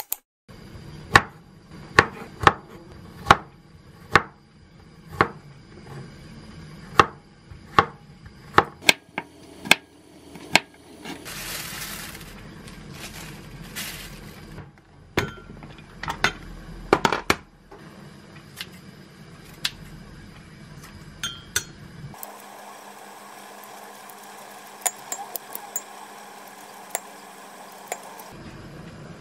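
Kitchen prep sounds: a run of sharp knocks and clinks a little over one a second, then plastic cling wrap crinkling as it is peeled off a foam tray of sliced beef brisket. Near the end, kitchen scissors snip kimchi in a glass bowl, with a few small clicks.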